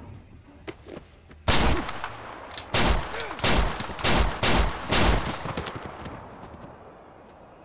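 Film gunfight sound: a quick volley of about seven gunshots over three and a half seconds, each ringing out, the last echoing away. A couple of faint clicks come just before the first shot.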